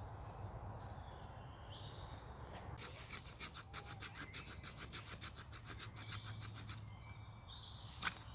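A knife blade scraping in quick, even strokes, about seven a second, starting about three seconds in and lasting about four seconds. Birds call briefly before and after, and a sharp tap comes near the end.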